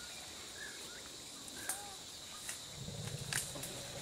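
Outdoor ambience: a steady thin high insect tone with a few short bird chirps, and scattered sharp clicks, more of them near the end.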